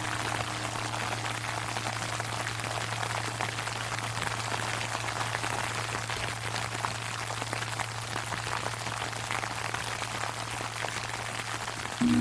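Sleet pattering steadily on an umbrella, a dense hiss of fine ticks. Under it a low steady hum lingers from a large Japanese temple bell (bonshō), and the bell is struck again at the very end.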